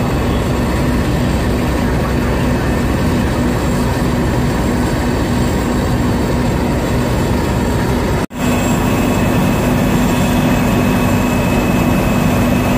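Fire truck diesel engines running steadily at a fire scene, a loud continuous engine drone with a constant hum. It drops out for a moment about eight seconds in, then carries on.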